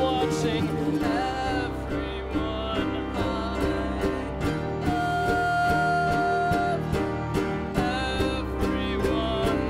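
Live band playing an instrumental passage of a slow song: piano with plucked strings and drums, with a long held high note about halfway through.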